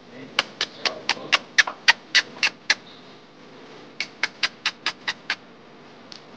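Dog at play giving a rapid series of short, high-pitched yips, about four a second: about eleven in a row, a pause of just over a second, then seven more.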